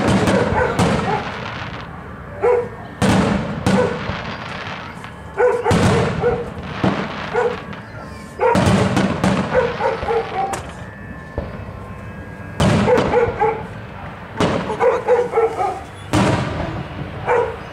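Aerial fireworks going off in a series of loud booms, each followed by crackling. In between, a dog barks repeatedly in short bursts.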